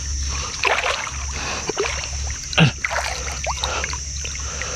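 Water sloshing and splashing around a small boat moving slowly along a river bank, with one louder splash about two and a half seconds in.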